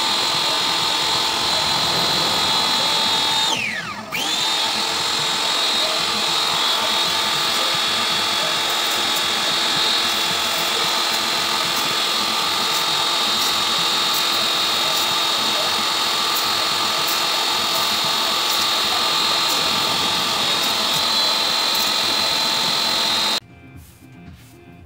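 Lavor electric pressure washer running steadily with a high whine, its water jet hissing against the kennel floor. About four seconds in it briefly winds down and comes back up. Near the end it cuts off suddenly.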